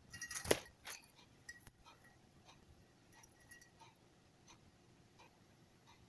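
Budgerigars in a wire cage making short chirps and small clicks, with a brief flurry of louder clicks and a knock in the first second.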